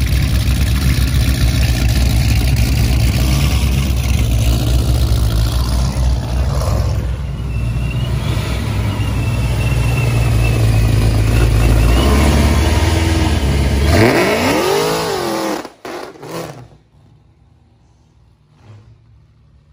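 Dodge Charger's V8 running loud with a deep exhaust rumble as the car pulls out, then revving up in a rising and falling sweep about fourteen seconds in as it accelerates away. The sound cuts off abruptly a couple of seconds later, leaving only a faint background.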